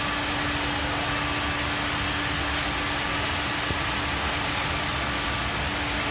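Micromatic cylindrical grinding machine running with a steady hiss and rumble. A steady motor hum comes in right at the start and holds.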